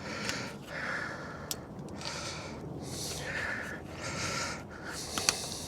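A person breathing heavily close to the microphone while prying at a small clip with a screwdriver, with a few sharp clicks from the tool and clip. The loudest click comes about five seconds in.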